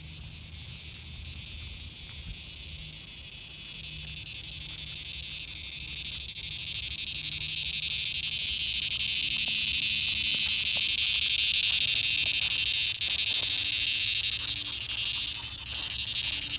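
A single cicada buzzing loudly and steadily at a high pitch. The buzz grows louder over the first ten seconds or so, then holds.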